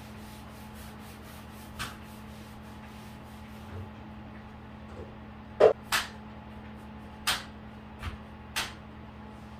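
Several short, sharp clacks and knocks over a steady low hum, the loudest a little past halfway: a long-handled scrubber knocking against a bathtub while it is scrubbed.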